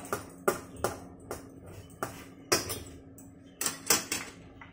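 Kitchen utensils and containers clinking and knocking as they are handled and set down on a countertop, about ten sharp strikes, irregularly spaced, stopping shortly before the end. A faint steady hum runs underneath.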